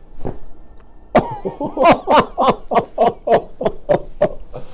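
A person laughing in a rapid run of about a dozen short "ha" or "hoo" bursts, about three a second, each dropping in pitch, starting about a second in.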